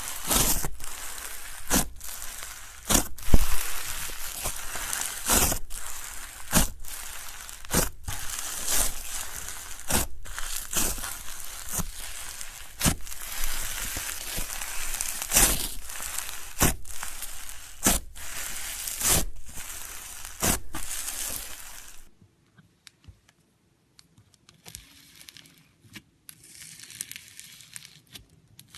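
Slushee slime being squished and worked by hand: a steady crackly crunching with sharp pops about once a second. About three quarters of the way through it cuts to a much quieter clip with softer crinkling.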